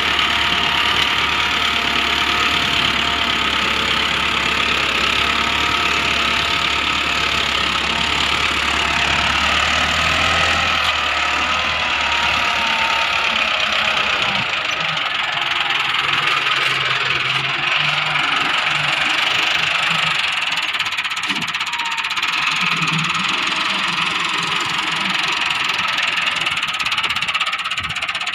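Millat Massey Ferguson 375 tractor's diesel engine running steadily as it works a front blade through soil; its deep low hum drops away about halfway through.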